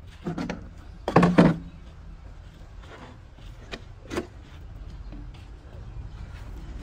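A few sharp knocks, the loudest pair about a second in and two smaller ones near the four-second mark, over a steady low hum.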